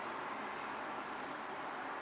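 Steady, even hiss of road traffic with no distinct events.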